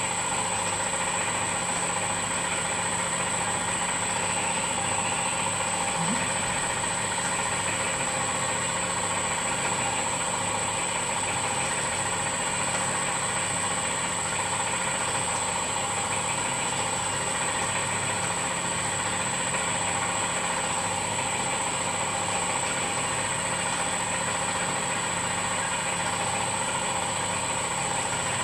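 Boutelje Honey Auger running steadily as it grinds crystallised honey: a constant machine hum with a thin, high, unchanging whine.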